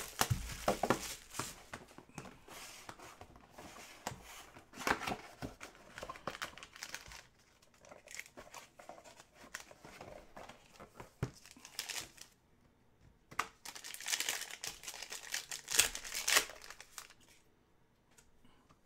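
Hand rustling and crinkling of trading-card packaging as a Topps Chrome Black box is opened: the cardboard lid and foam insert are handled, with irregular crinkles and small clicks. The louder bursts come about five seconds in and again a few seconds before the end.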